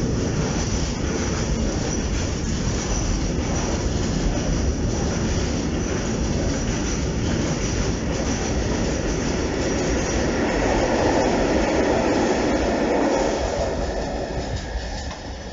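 Container freight train's flat wagons rolling past, a steady rumble of wheels on rail with a thin high wheel squeal over it. The sound fades near the end as the last wagons go by.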